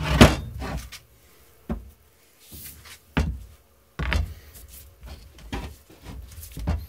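Steel sledgehammer head and a new fiberglass handle knocking against each other and the workbench as the handle is fitted into the head's eye: about six separate knocks and thuds, the loudest at the start.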